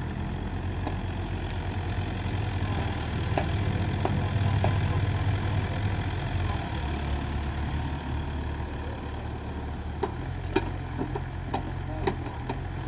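Excavator's diesel engine running steadily, working harder for a few seconds in the middle. Several sharp knocks come near the end.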